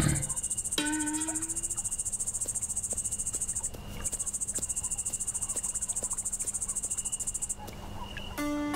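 Crickets chirring in a rapid, even trill, with a short break about four seconds in. The chirring stops near the end, as a few sustained musical notes come in.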